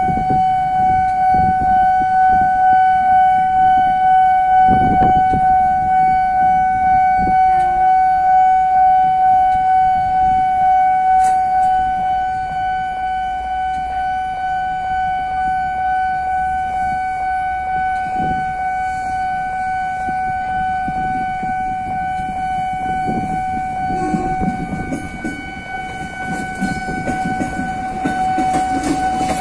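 Railway level-crossing warning bell sounding a steady, pulsing tone throughout. From about 23 seconds in, the rumble of an electric commuter train grows under it as the train arrives and runs past the crossing.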